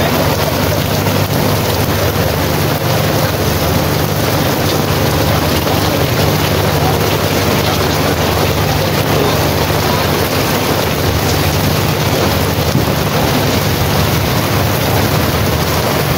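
Steady rain with wind buffeting the microphone, over a steady low engine hum.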